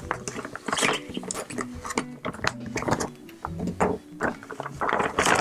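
Plastic bag crinkling and rustling as it is snipped open with scissors and pulled apart, with quiet background music underneath.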